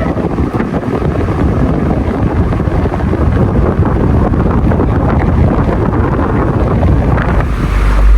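Ventisilva wall fan from 1996 running, its blades turning and its airflow buffeting the microphone as a loud, rough rush of wind noise. The rumble swells near the end.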